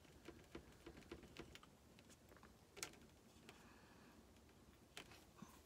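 Faint, irregular light clicks and taps as fingertips press glued rhinestones down around the rim of a silver-plated tray.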